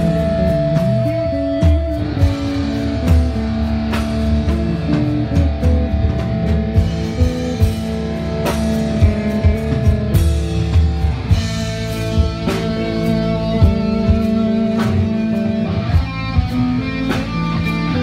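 Live rock band playing on stage: electric guitar and bass guitar with long held notes over a drum kit keeping a regular beat.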